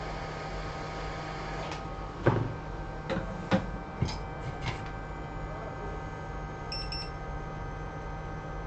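Steady electrical hum on an electronics repair bench, with a handful of sharp clicks and knocks about two to five seconds in, the loudest first. A short, high double beep comes near the end.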